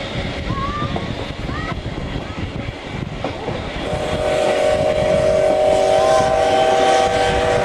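Steam train running, heard through an open carriage window. About four seconds in, the C56 steam locomotive's whistle sounds one long, steady blast of several tones together.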